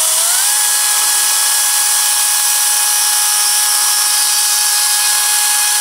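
Makita DUC400 brushless cordless chainsaw (two 18 V batteries, 36 V) running at full speed. Its pitch climbs just after the start, then holds steady while it cuts through a 4x4 wooden post under load, drawing about 18 amps.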